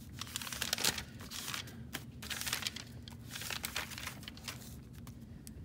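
Paper pages of a spiral-bound notebook being turned and handled, rustling and crinkling in several short bouts.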